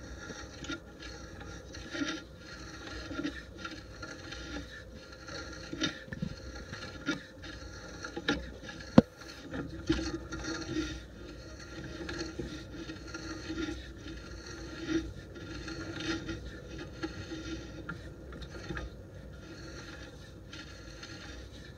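Sewer inspection camera and its push cable being fed along a main sewer line, scraping and rubbing against the pipe with irregular knocks. A sharp click about nine seconds in is the loudest sound.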